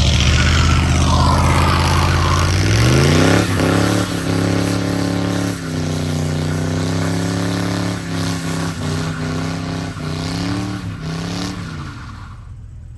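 A Mopar car's engine revving up hard about three seconds in and held at high revs for several seconds, then easing off and fading away near the end.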